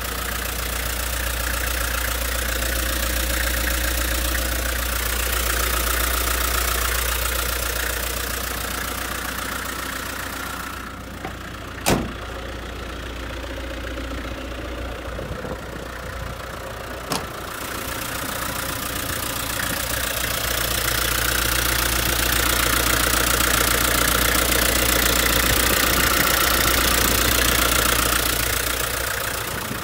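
Mitsubishi Canter's 4D30 four-cylinder diesel engine idling steadily. It is louder in the first and last thirds and quieter in the middle, where two sharp knocks stand out a few seconds apart.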